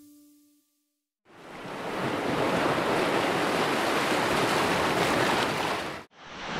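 Surf washing on the beach with wind on the microphone: an even rushing noise that fades in after about a second of silence and breaks off briefly near the end. The last of a music tail fades out at the very start.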